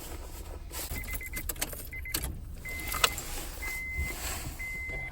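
Honda CR-V's dashboard warning chime beeping, a steady single tone about once a second, each beep about half a second long. Clicks and key jangling come as the ignition key is handled, with one sharp click about three seconds in.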